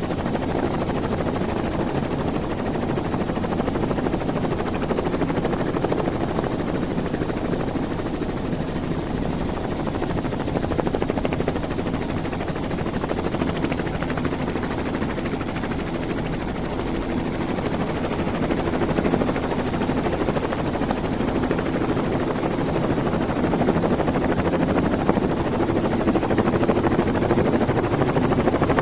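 A steady mechanical drone with dense fast pulsing and a thin high whine, getting slightly louder near the end.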